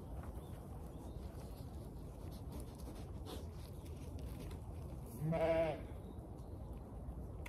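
A Zwartbles sheep bleats once, a short wavering call about five seconds in, over a steady low rumble.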